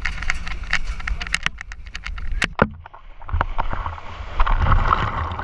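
Quick footsteps on a metal dock gangway, then a jump into the sea about three seconds in: a splash followed by churning, frothing water.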